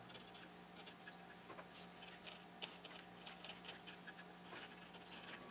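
Faint, irregular scrapes and small ticks of a sharp chisel paring leftover CNC tabs off a wooden letter.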